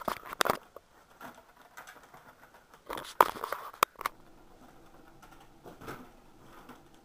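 Camera handling noise: knocks, clicks and rustling as the camera is moved about and set down, in two bursts about three seconds apart, then only faint room tone.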